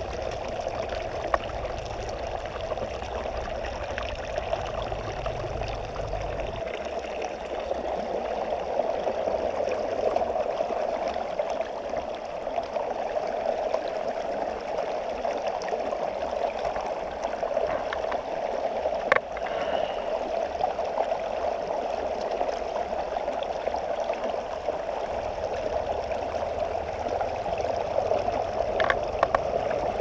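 Shallow river running over rocks: a steady, even rush of water, with a couple of sharp clicks along the way.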